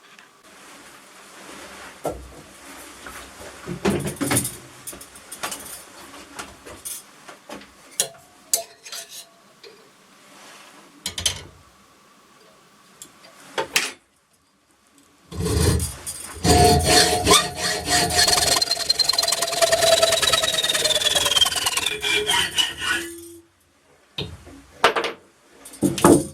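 Workshop tool noise as 8mm bar stock is worked: scattered knocks and rasping strokes, then about eight seconds of loud cutting noise from a power tool whose pitch falls as it slows, before stopping suddenly.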